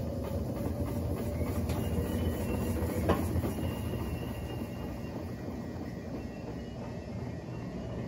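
Brastemp BWH15 top-loading washing machine spinning its basket with a wet load of jeans and sweatshirts while draining: a steady motor hum and rumble with the drain pump running. One sharp knock comes about three seconds in.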